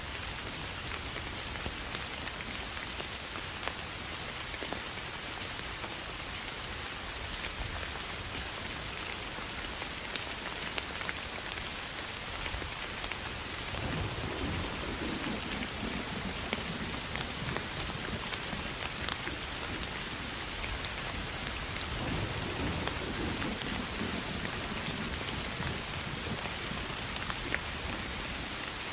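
Steady rain falling on grass and vegetation, with many separate drop ticks. A low rumble of thunder comes about halfway through, and another a few seconds later.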